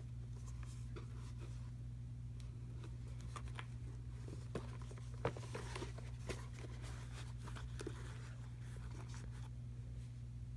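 Handling noise from a pair of suede lace-up block-heel boots being turned over and set down: soft rustles and scattered light clicks, a few sharper ones in the middle, over a steady low hum.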